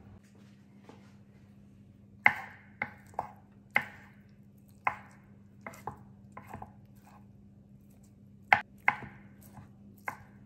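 Kitchen knife chopping cooked chicken breast on a bamboo cutting board: irregular sharp knocks of the blade striking the board, starting about two seconds in.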